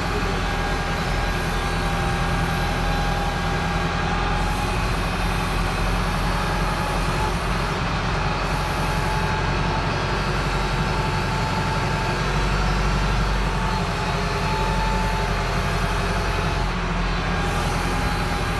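YTO 904 tractor's diesel engine running steadily, heard from inside the cab, with a faint steady whine over the low engine hum.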